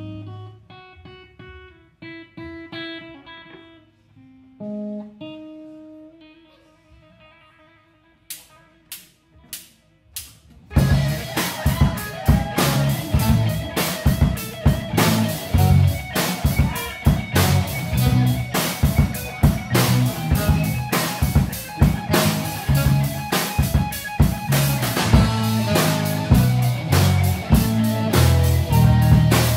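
Live rock band playing: a single guitar picks a slow intro of separate notes, a few sharp drum hits come in about eight seconds in, and then the full band enters with drums, bass and electric guitars, much louder, about eleven seconds in.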